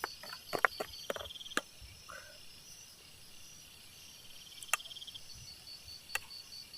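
Insects chirping: a high, evenly pulsing trill of about five pulses a second, with a second, faster trill coming and going. A few sharp clicks sound over it, most in the first second and a half.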